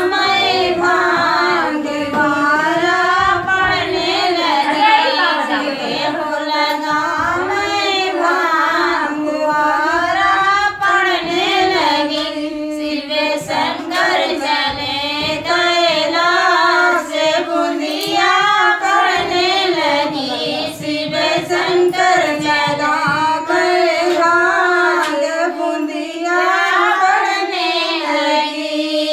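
Three women singing a Bagheli folk song (bhola geet) together in one voice, the melody wavering and sliding with short breaks between lines.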